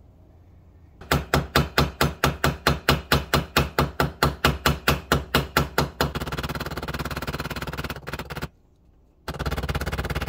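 Small hammer tapping rapidly and evenly, about five blows a second for some five seconds, peening the new pivot pin of the pocket knife. Then a steady power-tool whir that cuts out briefly and starts again near the end.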